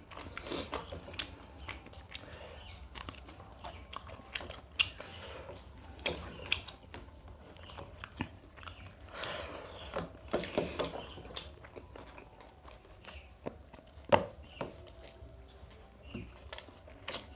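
Two people eating mutton biryani by hand: chewing and mouth sounds, with many small wet clicks and smacks. One louder click comes late on.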